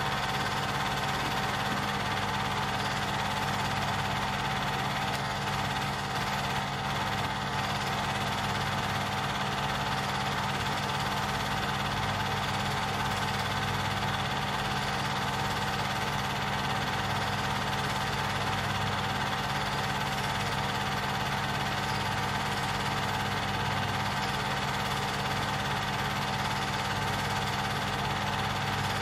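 Film projector running: a steady mechanical whir and hum with several fixed tones, unchanging throughout.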